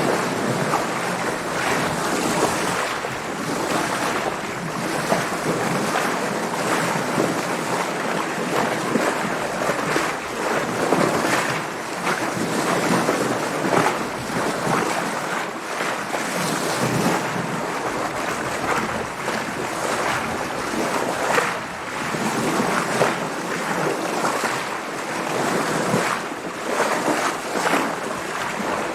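Water splashing and sloshing against a sailing boat under way, with wind, in a continuous stream of irregular swells.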